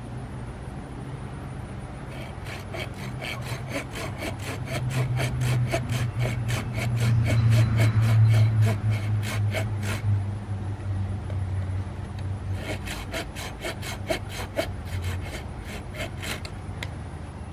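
Hand pruning saw cutting through a round of ornamental pear wood in quick back-and-forth strokes. The strokes stop for a couple of seconds partway through, then resume. A low drone in the background swells to its loudest about halfway through.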